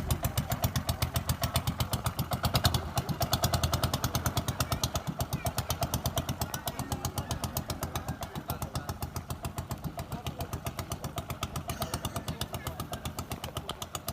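Small boat engine of a bangkarera racing banca running at a slow, steady beat, about six exhaust pulses a second, getting somewhat fainter after the middle.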